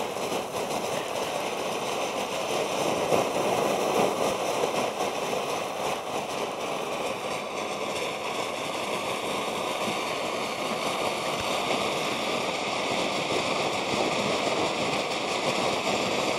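Homemade copper coil jet alcohol stove burning with a steady roar, a bit like a petrol or gas stove. The flame is wide and busier than expected, which the maker thinks may come from vapour leaking where the copper pipe passes through the lid.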